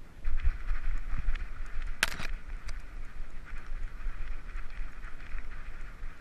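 Handling noise from a camera on a dog's harness as the dog runs: irregular low bumps and wind buffeting on the microphone. There is one sharp knock about two seconds in.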